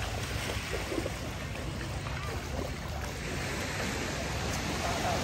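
Beach ambience: waves washing on the shore over a steady low rumble, with faint voices.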